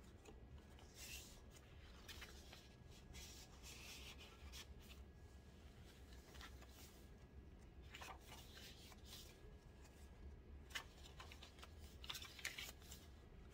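Faint, intermittent rustling and rubbing of paper and card as a handmade journal's pages and loose ephemera pieces are handled, with a few sharper scrapes in the second half.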